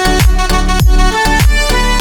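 Background music: an upbeat dance track with a steady kick-drum beat and sustained synth notes.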